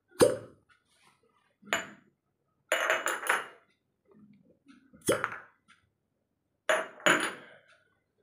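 Glass cupping cups clinking and knocking against one another as they are handled in a row on a client's back: about six sharp clinks, the loudest just after the start, with a quick run of them around three seconds in.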